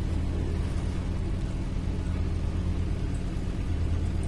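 Steady low hum, with one faint click about three seconds in.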